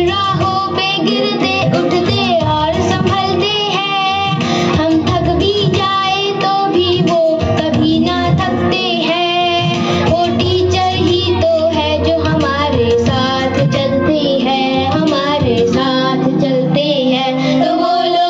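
A song with a high, wavering singing voice over full instrumental backing, playing loud and without a break: music for a stage dance.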